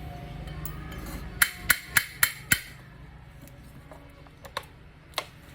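Hammer blows during motor repair: five quick, sharp strikes about four a second, then two lighter taps near the end.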